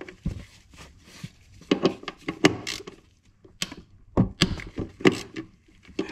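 Irregular knocks and clunks of hand tools and metal parts being handled at a snowmobile's drive-shaft bolts, bunched around two seconds in and again around four to five seconds in.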